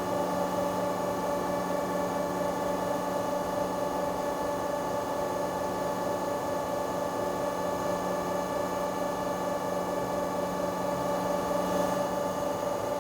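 Four-roller plate bending machine, powered by an electric motor and hydraulics, running with a steady hum of several fixed pitches as it rolls the sheet into a cylinder.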